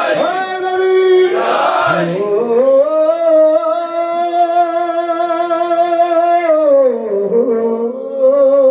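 A man singing into a microphone, amplified, holding one long note for about four seconds that glides up into it and falls away at the end, then going on with a wavering note.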